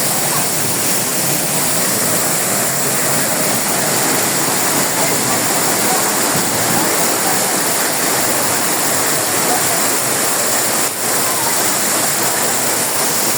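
Waterfall rushing: a loud, steady roar of falling water with no break.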